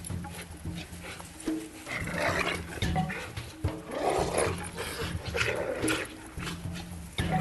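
Dogs growling and snarling in irregular outbursts.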